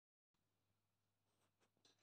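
Near silence: faint room tone with a low steady hum, and a few faint short clicks in the second half.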